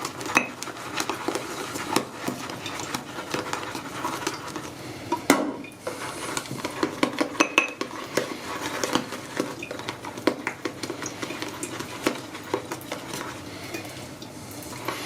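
Synthetic shaving brush swirled against the inside of a bowl, whipping shave soap into lather: a busy wet scraping and clicking of bristles on the bowl, with a short pause about five and a half seconds in.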